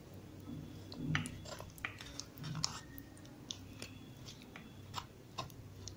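Metal spoon scraping soft boiled green-mango pulp from the skin and stone: faint, with scattered small clicks.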